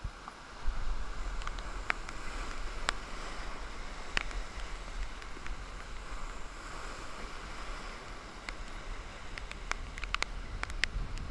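Steady wash of rough surf breaking over rocks, with wind rumbling on the microphone from about a second in and scattered sharp ticks.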